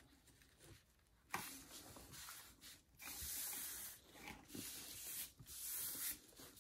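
Paper crackles sharply as a sheet of construction paper is folded about a second in. A hand then rubs across the folded sheet in several strokes, pressing the wet paint inside into a mirror print.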